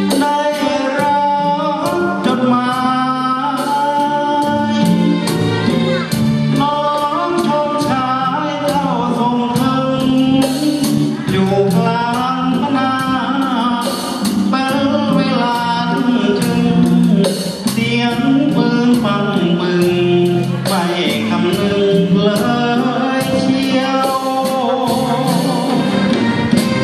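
A man singing a Thai song into a microphone, with live orchestral accompaniment; his voice wavers on the held notes.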